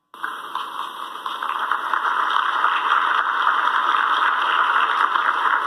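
Applause from many people clapping, a dense steady clatter that builds over the first couple of seconds and then holds.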